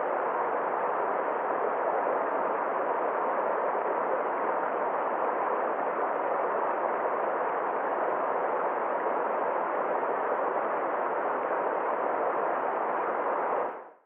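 Water of a small mountain stream rushing over a rock ledge in a little waterfall: a steady, even rush that fades out near the end.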